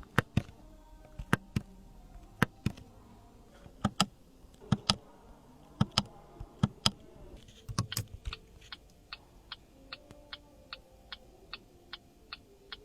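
A series of sharp mechanical clicks, like switches or buttons being worked: irregular for the first eight seconds or so, then an even ticking at about two and a half clicks a second.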